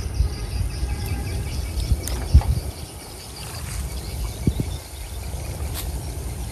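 Insects chirping steadily over a low rumble, with a few short knocks and rustles, the loudest about two seconds in.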